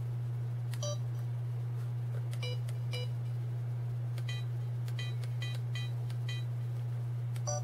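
Sony Cyber-shot DSC-H300 camera giving short electronic menu beeps, about nine in all, one for each press of the control wheel. The beeps come closer together in the second half, and a steady low hum runs underneath.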